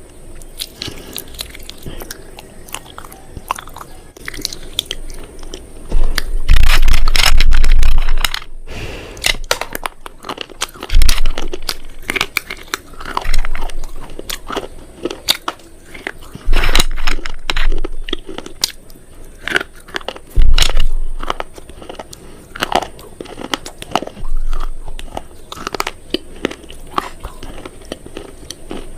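Loud, close-up crunching and crackling of something brittle, in repeated bouts. The heaviest crunches come about six, eleven, seventeen and twenty seconds in, with smaller crackles between them.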